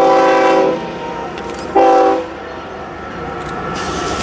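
Diesel freight locomotive's air horn sounding a chord: a blast of about a second, then a shorter one about a second later, over the rumble of the approaching train, which grows louder near the end.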